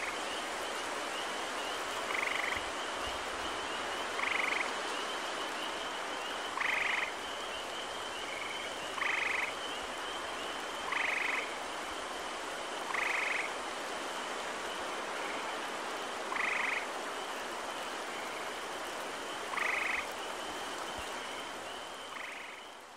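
Gray tree frogs giving short trills about every two seconds over the steady, high chorus of spring peepers and an even hiss, all fading out near the end.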